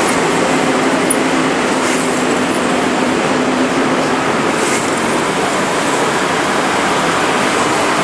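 Steady running noise of a vehicle wheel fitted with an aftermarket 280 mm brake disc, which makes an abnormal noise as it turns, with a faint steady hum and a couple of faint brief high scrapes.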